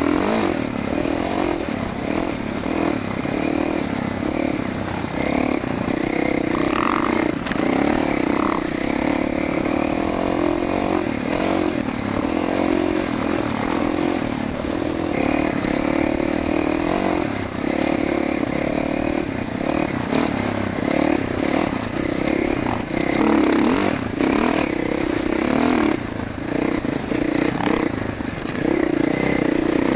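2021 Gas Gas MC450F's single-cylinder four-stroke engine running under load while the dirt bike is ridden, the throttle opening and closing so the engine note keeps rising and falling.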